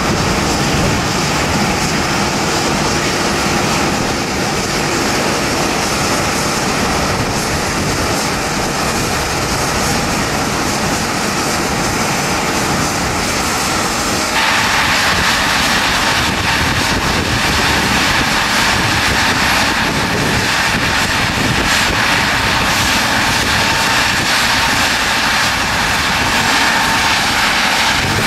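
Twin jet engines of an Airbus A319 airliner running at taxi power: a steady whine and rush of jet noise. About halfway through it jumps abruptly to a louder, brighter hiss.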